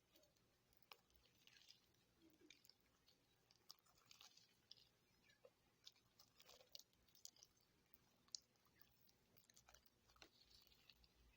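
Faint, irregular sticky clicks and crackles of homemade slime being squished and worked.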